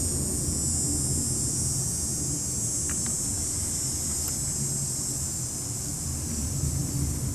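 Low, steady distant rumble that sounds like airshow aircraft engines, over a constant high-pitched buzz of insects such as crickets or cicadas.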